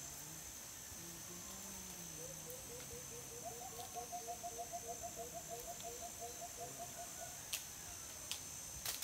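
A rapid series of short rising animal calls, about four a second, in two overlapping voices, over a steady high insect drone. Three sharp knocks near the end.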